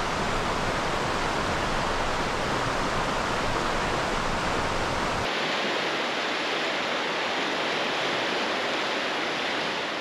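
Steady rushing of river water through cascades in a canyon, an even, full noise. About five seconds in the sound changes abruptly and loses its deep low rumble, leaving a thinner rush.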